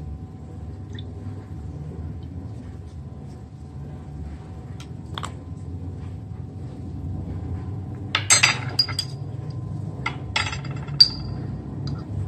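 A metal spoon clinking against a small glass jar while scooping sauce: a few scattered clinks, a quick cluster about two-thirds of the way through, and one sharp ringing clink near the end. A steady low hum sits underneath.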